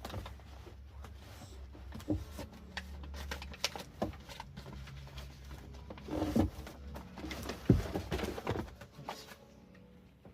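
Rustling, clicks and knocks of someone rummaging for and handling a book, with a sharper knock about eight seconds in, over a low steady hum.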